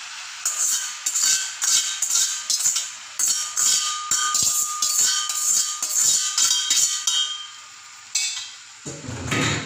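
Perforated stainless-steel colander knocked and shaken against a frying pan to tip out the last of the cooked spaghetti. It makes a quick, rattling series of metallic clanks with a faint ring, and a duller, fuller noise follows near the end.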